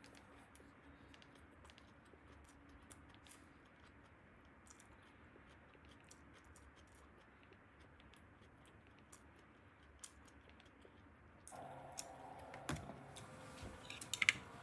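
Faint, scattered light clicks and taps over a quiet room hum. About eleven seconds in, a louder background sound with a low steady tone comes in.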